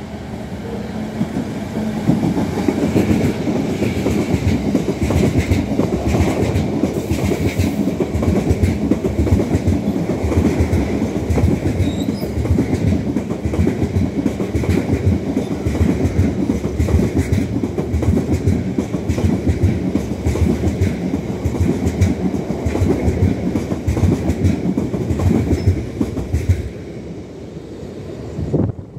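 A Class 66 diesel locomotive passing at speed with a long train of cement tank wagons. The rumble builds over the first couple of seconds as the locomotive arrives, then the wagon wheels clatter steadily over the track, and the sound falls away near the end as the last wagons clear.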